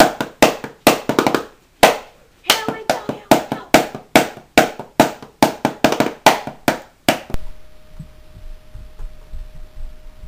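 A quick rhythmic run of sharp, clap-like percussive strikes, about three a second with a short break about two seconds in, which cuts off suddenly about seven seconds in. After that there is only a faint low rumble and a steady hum.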